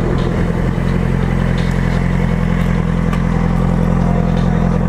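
2007 Yamaha R6's inline-four engine, fitted with a Leo Vince aftermarket exhaust, running at a steady low engine speed with an even, unchanging note.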